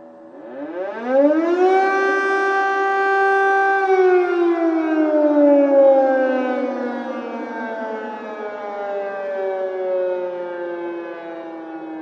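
Air raid siren wailing: it rises steeply in pitch about a second in, holds one steady tone for a few seconds, then slowly falls in pitch.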